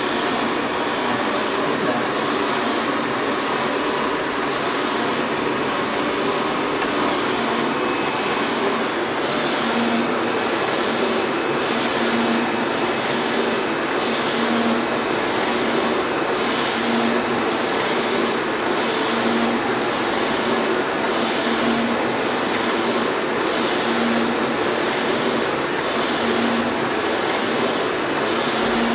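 UV flatbed inkjet printer running steadily, its print-head carriage sweeping back and forth over a clear plastic sheet in an even rhythm of passes about once a second. It is set to print in one direction only.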